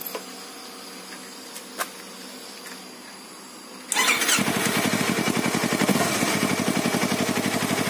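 Yamaha R25 parallel-twin engine started about four seconds in with no muffler fitted, only the open link pipe: a brief crank, then it catches and idles loudly with a rapid, even pulse.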